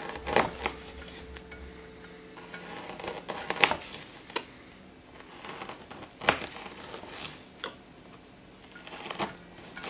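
Knife cutting a whole sardine crosswise into cutlets on a plastic cutting board: about six sharp knocks, a second or more apart, as the blade goes through the fish's backbone and strikes the board.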